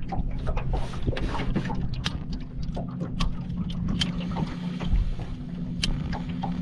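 A small boat's motor running steadily with a low hum, while water slaps and splashes against the hull in frequent short bursts.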